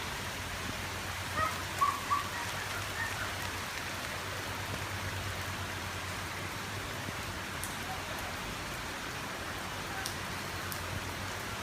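Steady rainfall in a rainstorm, an even hiss, with a few sharp ticks near the end.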